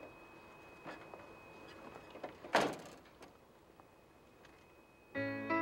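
A car door slams shut about halfway through, after a few light clicks and knocks as someone gets in. Soft piano music begins near the end.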